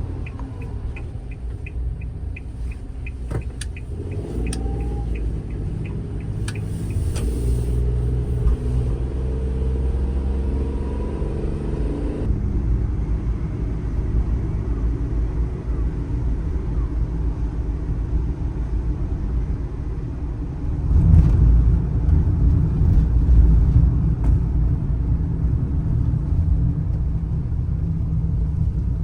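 A 660 cc kei truck driving, heard from inside the cab: its engine running under steady road rumble, climbing in pitch as it accelerates from about four seconds in, and a louder low rumble from about twenty-one seconds. A fast, even ticking during the first three seconds.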